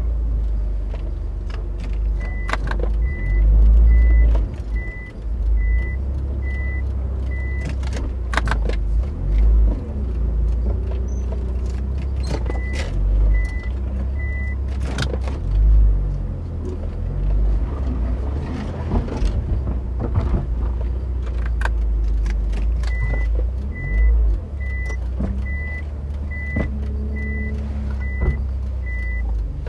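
Mitsubishi Lancer Evolution driving over a rough abandoned road: a steady low rumble that swells now and then, with frequent sharp knocks and bumps. In stretches, a faint high beep repeats about twice a second.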